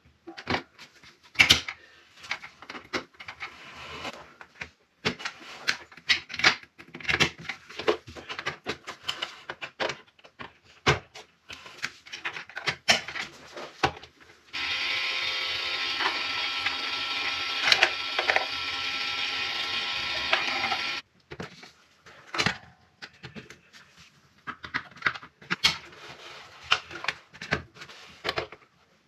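Marbles rolling and clacking down a toy marble run track, many irregular sharp clicks. About halfway through, a steady sound of several held tones from the toy comes in for about six seconds and stops abruptly.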